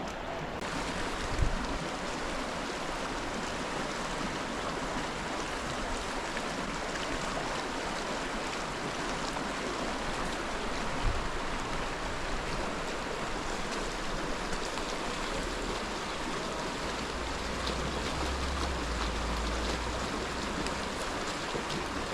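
A river running steadily, a constant rush of flowing water. Two brief low thumps cut through it, about a second and a half in and about eleven seconds in.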